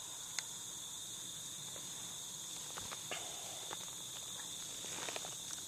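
Crickets trilling steadily in a high, even chorus, with a few scattered faint clicks.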